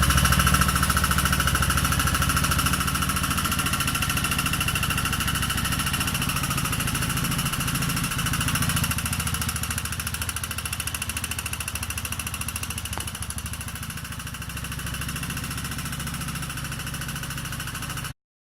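Kawasaki Estrella's air-cooled single-cylinder four-stroke engine idling steadily with a clattering mechanical beat, after a repair of an abnormal noise that the owner says left it a little quieter. It swells slightly about eight seconds in and cuts off suddenly near the end.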